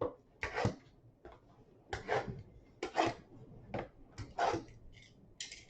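Cardboard card boxes being cut open and handled: a series of short scraping, rustling strokes about a second apart.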